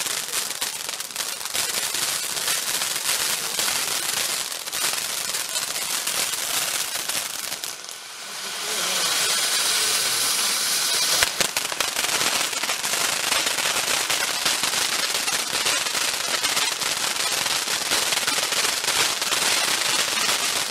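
Chinook fireworks cake firing: dense crackling and popping from the star and crackle effects for about eight seconds, then a steady hiss of the silver fountain for a few seconds. A sharp crack follows, and rapid crackling resumes to the end.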